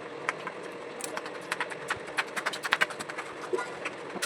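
Quick small clicks and taps of hard parts being handled while a table fan is worked on, bunched together around the middle, over a steady hum.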